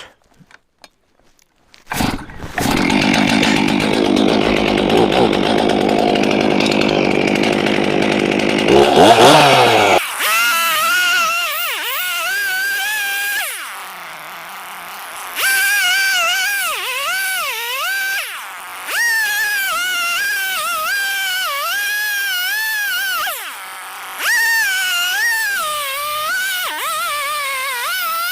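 Stihl chainsaw starting up about two seconds in and running, revving up near the ten-second mark. It then cuts slab wood at high revs, its pitch dipping repeatedly under load, and it drops back twice between cuts.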